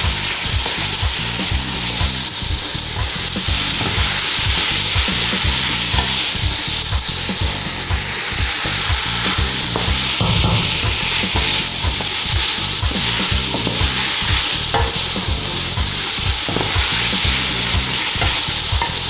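Diced vegetables sizzling in olive oil in a large stainless-steel pot, stirred continually with a wooden spoon that knocks and scrapes against the pot many times over. The vegetables are being sautéed until soft and glazed.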